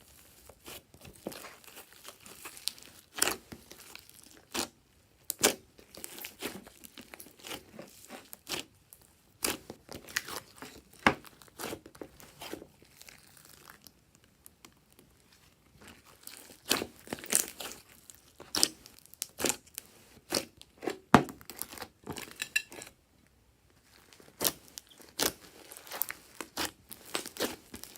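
Glossy slime being squished and stretched by hand, giving a string of irregular sticky clicks, pops and crackles, with a short pause near the end.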